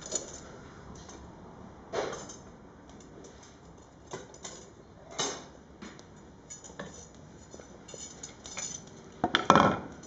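A fire being tended in an open irori-style fireplace: scattered hard knocks and clinks of firewood and fire tools being handled, with the loudest cluster near the end.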